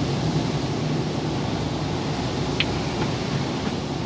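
Lorry engine running steadily with tyre and road noise on a wet lane, heard from inside the cab, and one short tick about two and a half seconds in.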